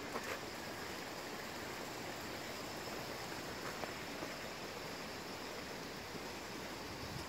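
Steady rushing of stream water, with a couple of faint footsteps on wet gravel near the start.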